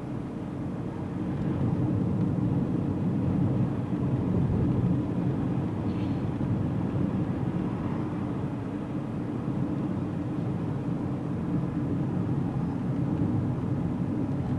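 Car road and engine noise heard from inside the cabin while driving: a steady low rumble that grows louder about two seconds in.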